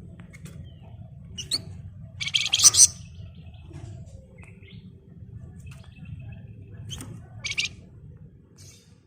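Javan fulvetta (Wergan Jawa) giving short, rapid buzzing trills, the longest and loudest about two and a half seconds in and a shorter pair near the end, over a steady low hum.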